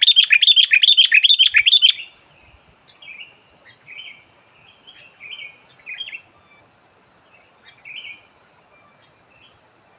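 Sooty-headed bulbul (kutilang) singing: a loud, rapid run of chattering notes for about two seconds at the start, then softer short phrases about once a second.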